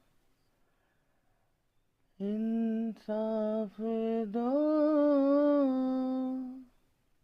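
A lone voice singing a slow Hindi line unaccompanied. After about two seconds of silence come three short sung syllables, then a long held note that lifts slightly in pitch and fades out near the end.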